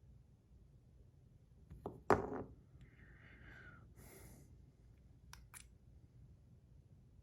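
Stainless steel bar spinner and its buttons being handled as the buttons are swapped: a sharp metallic click about two seconds in, a brief scraping, then two light clicks.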